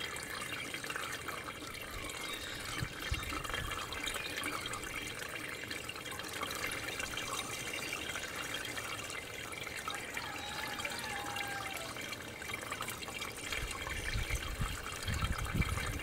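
Water trickling and splashing steadily from a small solar fountain jet on a soda-bottle birdbath. There is some low rumbling near the end.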